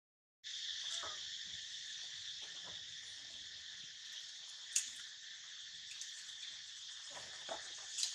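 Steady, high-pitched drone of an insect chorus, with a few faint clicks and one short sharp tick about five seconds in. The sound cuts out completely for a split second at the start.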